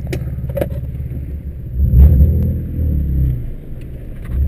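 BMW 325i's straight-six engine heard from inside the cabin, running steadily low, then revving up loudly about two seconds in and easing off toward the end.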